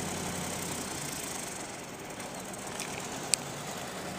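Steady hum of an idling engine under a broad, even hiss, with one sharp click a little over three seconds in.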